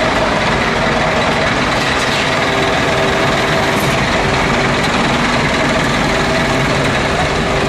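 Scania truck on the move: the engine runs with a steady drone over constant road noise.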